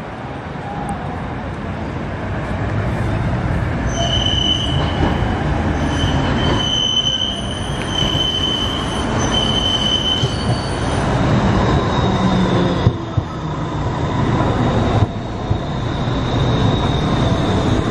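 Pesa Swing 122NaSF low-floor tram running along the track and passing close by, its wheels rumbling on the rails. Its steel wheels squeal in high, steady tones for several seconds midway.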